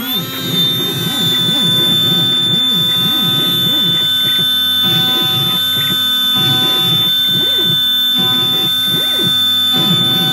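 CNC engraving machine running a cut: its spindle gives a steady high-pitched whine, settling at speed within the first half second, while the axis motors whir beneath it, their pitch sweeping rapidly up and down as the head moves. The spindle's cooling pump is switched off.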